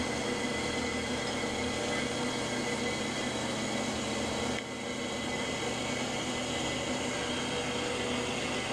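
Horizontal metal-cutting band saw running steadily through 1¼-inch round bar stock, with coolant pouring over the cut. The level drops slightly and the tone shifts just past halfway.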